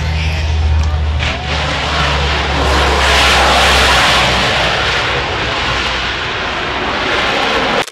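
Lockheed C-130 Hercules's four turboprop engines running at high power: a steady deep propeller drone for about the first four seconds, under a broad rushing roar that swells around three seconds in.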